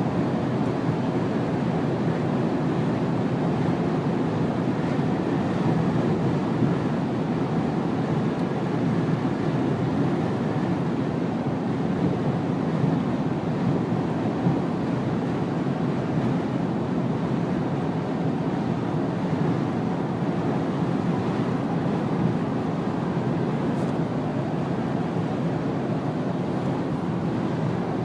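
Steady rushing noise of a thunderstorm, its wind and rain.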